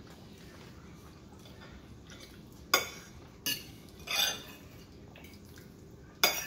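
Metal fork clinking against a plate while scooping rice and chips: sharp clinks about three seconds in and again half a second later, a short scrape just after, and one more clink near the end.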